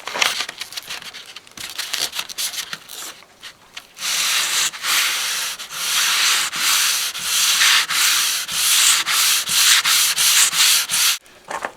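Sandpaper rubbed by hand over body filler on a car panel: light, uneven strokes at first, then quick regular back-and-forth strokes, two to three a second, from about four seconds in. It stops abruptly near the end.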